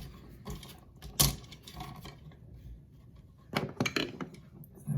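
Scattered small clicks and taps of hands working a GFCI receptacle and its wires, with a sharper click about a second in and a quick run of taps near the end.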